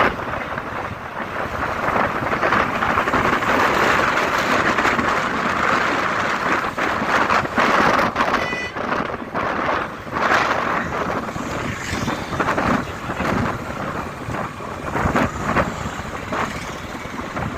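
Highway traffic passing close by, a steady wash of engine and tyre noise that swells and fades as vehicles go past, with a brief horn toot about eight seconds in.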